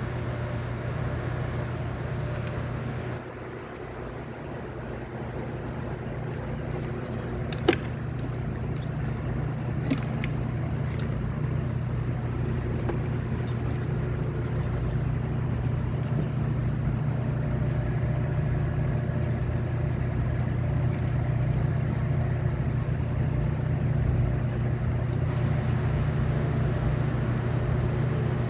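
Lexus IS250's 2.5-litre V6 running steadily at idle, with a couple of sharp clicks around eight and ten seconds in.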